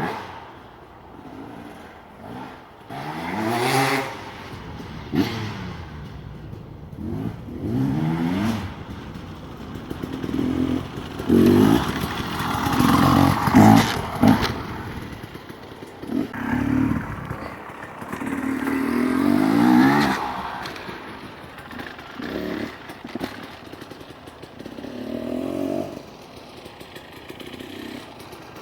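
KTM 250 XC two-stroke dirt bike engine revving in repeated bursts, its pitch rising and falling again and again as the throttle is opened and closed, with a few sharp knocks in between.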